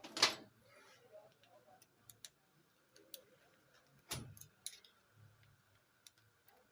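Tools and metal parts clicking and knocking while the steering lock is worked off a steering column assembly: a sharp knock at the start and another about four seconds in, with light ticks between.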